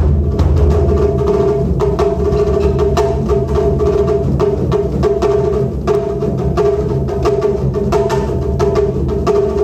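Taiko drum ensemble playing a dense pattern of deep drum strokes, punctuated by sharp wooden clicks, over a steady held note.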